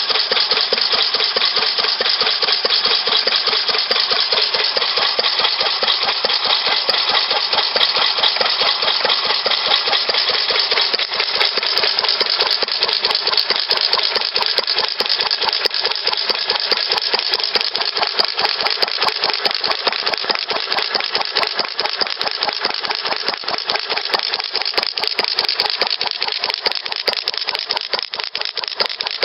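New Idea "Vari-Speed" antique single-cylinder stationary gas engine running steadily, firing with an even, rapid beat and no skipped strokes.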